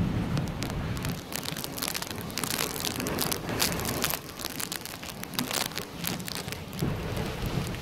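Heavy rain, with many drops hitting close to the microphone as sharp ticks through the middle. Wind buffets the microphone as a low rumble at the start and again near the end.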